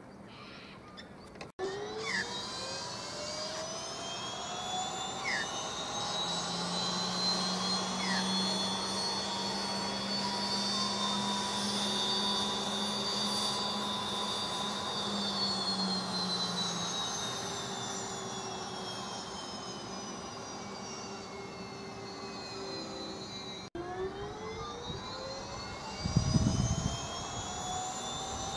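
Pilatus PC-12's Pratt & Whitney PT6A turboprop engine being started: the turbine whine climbs in pitch, holds, then winds down as the first start attempt fails. Near the end a second start begins, the whine rising again, with a brief low rumble a couple of seconds later.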